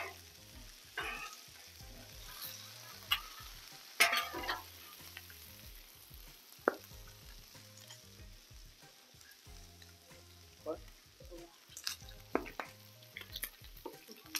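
Bacon and diced potatoes sizzling in oil on a steel flat-top griddle, a faint steady hiss. It is broken by a dozen or so short sharp scrapes and taps of a metal spatula on the griddle top, the loudest about four seconds in.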